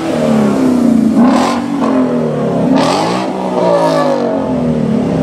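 Ford Mustang GT's 5.0-litre V8 exhaust revving as the car pulls away, the engine note climbing and falling back three times.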